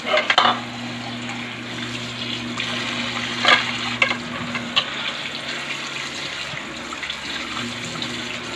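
Tap water running into a metal basin in a kitchen sink while shrimp are rinsed by hand, with a few sharp clatters of handling near the start and around three to five seconds in. A steady low hum runs underneath.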